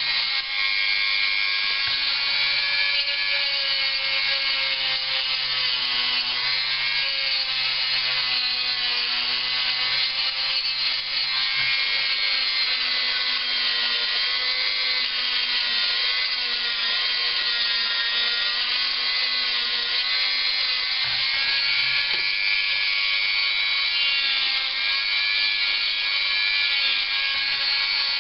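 A small power tool running without a break, its whine wavering slightly in pitch as it sands the plastic of a laptop case.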